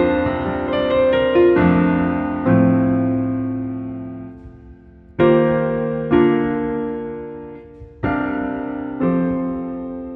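Slow piano music: chords struck one after another and left to ring and fade, with a longer fading gap about four seconds in before the next chord.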